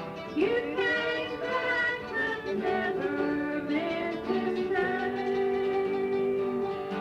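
A song played back from a cassette tape: held notes that slide between pitches, sung over a steady accompaniment.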